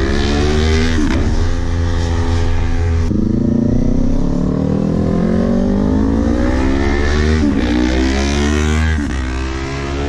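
Kawasaki Z400's parallel-twin engine through a Hotbodies MGP slip-on exhaust, accelerating up through the gears. The engine pitch climbs in long sweeps, with quick drops at the upshifts about one, three and seven and a half seconds in. It eases off the throttle near the end.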